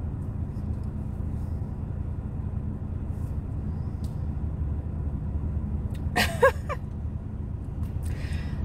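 Steady low background rumble, with a short wavering vocal sound about six seconds in and a brief hiss just before the end.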